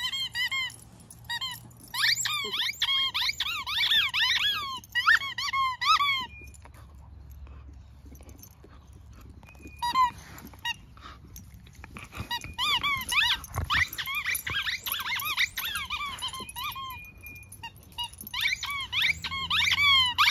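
Yellow Labrador chewing a rubber toy football, its squeaker giving several runs of quick high squeaks with pauses of a few seconds between.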